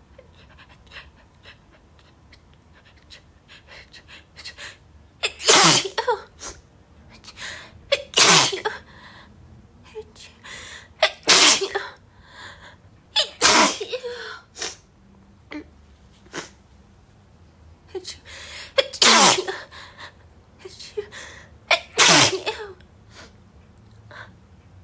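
A woman sneezing six times, each harsh sneeze held back and voiced as an "achoo" that falls in pitch at the end. The sneezes come at uneven gaps, beginning about five seconds in, with smaller breath sounds leading up to them.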